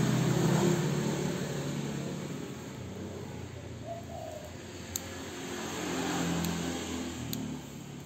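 Background road traffic: a low rumble that swells near the start and again about six seconds in, with a few faint sharp clicks.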